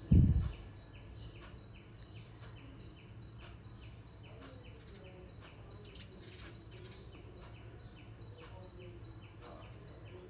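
Kitchen scissors snipping through raw chicken in faint, scattered clicks, after a dull thump right at the start. A bird chirps faintly and evenly, about three times a second, in the background.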